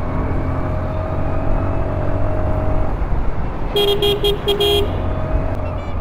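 A Yamaha Mio i 125 scooter running steadily on the road, with a low engine drone and a faint rising whine. About four seconds in, a horn gives a quick series of five or six short toots over about a second.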